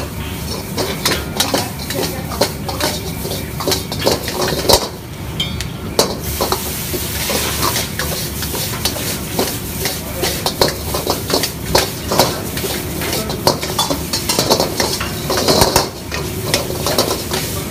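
Steel ladle clanking and scraping against a steel wok in quick, irregular strokes as noodles and vegetables are stir-fried, over steady sizzling from the hot wok.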